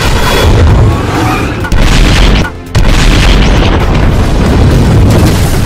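Loud action-film soundtrack: deep booms and an explosion over dramatic music, with a brief sudden drop about two and a half seconds in.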